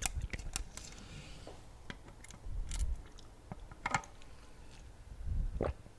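Close-miked ASMR mouth sounds: scattered wet clicks and smacks, with a soft breath and a couple of dull low thumps against the microphone.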